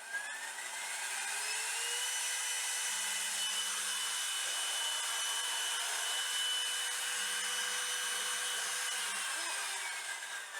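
A high-speed electric woodworking power tool motor spins up over about two seconds, runs steadily with a rising-then-level whine over a loud hiss, and winds down near the end.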